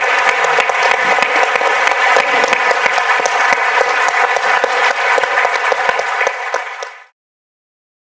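Audience applauding, a dense patter of many hands clapping that fades and cuts off to silence about seven seconds in.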